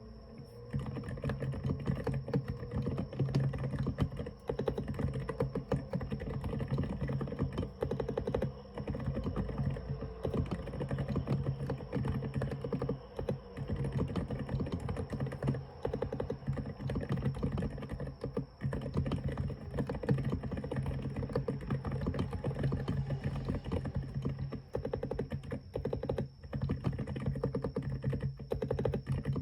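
Mechanical keyboard with SPM × Semoki silent tactile 'Icicle' switches being typed on quickly and without a break, a dense stream of keystrokes.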